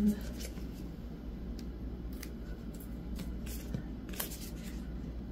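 Soft rustling handling of a cork fabric key-fob strap being picked up and folded by hand, with a few light clicks and one sharper click about four seconds in.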